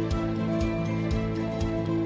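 Soft instrumental background music with sustained notes and a steady beat.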